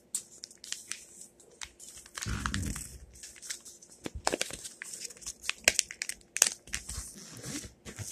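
Sheet of paper crinkling and rustling as it is handled and folded, with many sharp crackles from the creases. A dull rubbing noise, louder and lower than the crackles, comes about two seconds in.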